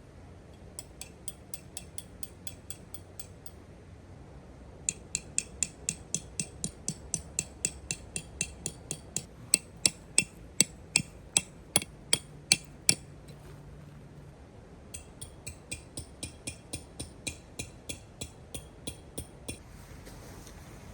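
Hammer blows on metal, about three a second, each strike ringing briefly. They come in three runs with short pauses between, and the middle run is the loudest.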